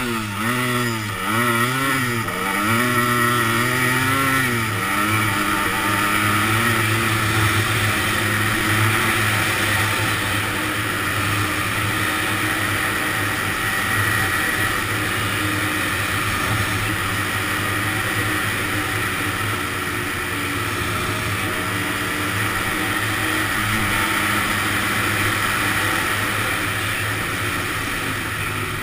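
Honda ATC250R three-wheeler's two-stroke single-cylinder engine running under way. In the first few seconds the pitch rises and falls several times with the throttle, then it holds fairly steady.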